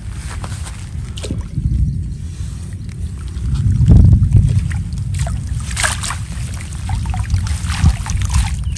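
Water sloshing and splashing as hands pull through weeds in a shallow ditch and lift a mesh fish trap out, water streaming off the net near the end. A deep rumble runs underneath, loudest about four seconds in.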